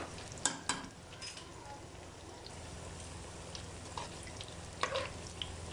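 Pakoras deep-frying in hot oil in a karahi: a steady sizzle, with a few sharp clicks at the start, about half a second in and again about five seconds in.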